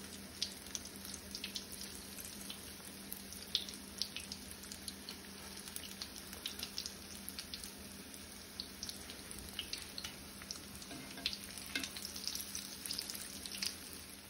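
Breaded croquettes frying in hot oil in a skillet: a steady sizzle dotted with many small crackles and pops as the oil bubbles around them.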